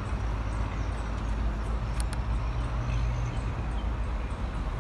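Steady low wind rumble buffeting the microphone, with two faint sharp clicks in quick succession about two seconds in.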